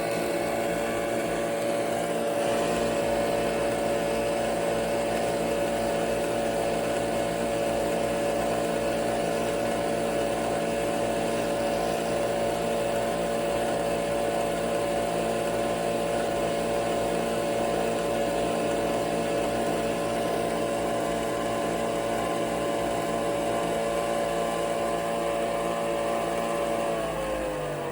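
Nespresso Vertuo Pop+ coffee machine running a brew cycle, its motor spinning with a steady whir; about a second before the end the pitch falls as the motor winds down.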